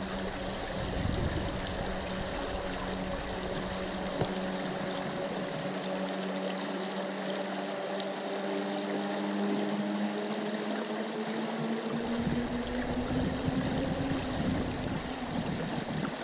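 Creek water running steadily over a riffle, an even rushing wash. Under it is a steady low hum with overtones, which rises slowly in pitch over the second half.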